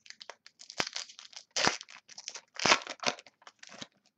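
A trading card pack's foil wrapper being torn open and crinkled by hand, a quick run of crackles with a few louder tears.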